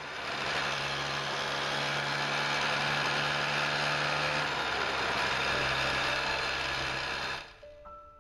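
Yamaha SDR200's single-cylinder two-stroke engine running steadily while riding, heard from an onboard camera over a broad rush of wind and road noise, its pitch dipping slightly about halfway through. The sound cuts off about seven and a half seconds in, and piano music begins.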